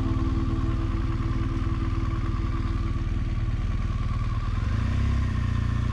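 Motorcycle engine running at low speed on a town street, heard from the rider's position, with the engine note picking up about five seconds in.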